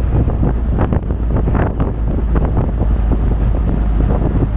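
Wind buffeting the microphone over the steady low rumble of the 1919 Studebaker on the move.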